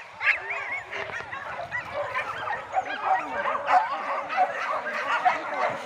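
A pack of hunting dogs barking and yelping, many short overlapping calls at once.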